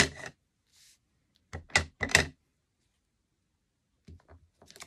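A few short knocks of an acrylic stamp block being tapped onto an ink pad and pressed onto cardstock: a small group about a second and a half in, and a few softer ones near the end.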